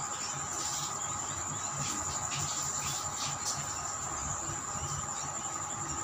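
A steady, unchanging high-pitched whine with a fainter steady hum beneath it.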